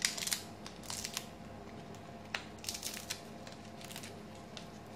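Dry bay leaves crackling as they are broken apart by hand: a run of short, sharp, irregular crackles, thinning out near the end.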